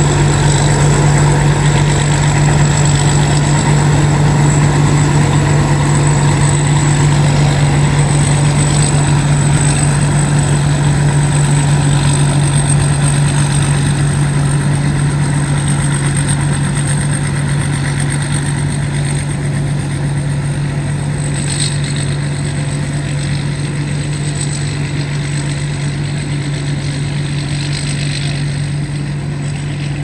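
Rice combine harvester's engine running steadily, a deep hum with a thin, high-pitched whine over it.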